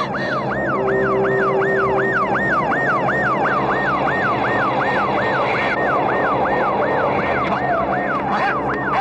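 Police siren in a fast yelp, its pitch sweeping up and down about three times a second.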